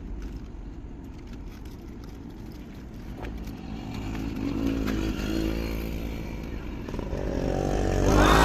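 Motor vehicle engine running with a low rumble, then revving up with its pitch climbing steeply near the end.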